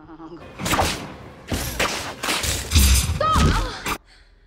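A string of about five loud thuds and blasts of film action sound effects, which cut off suddenly about four seconds in.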